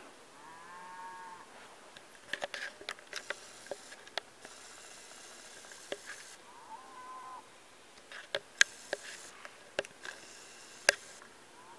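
An animal calls twice, a short arching cry each time, with a third starting at the very end. Scattered sharp clicks and taps fall between the calls.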